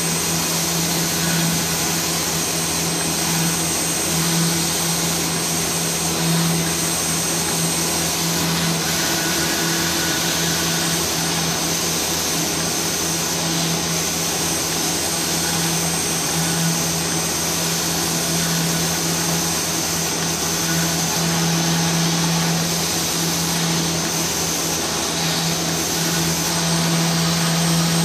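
Vertical CNC router spindle milling a composite panel, with the dust extraction drawing through the brush shoe: a steady loud rushing noise with a low hum and a thin high whine.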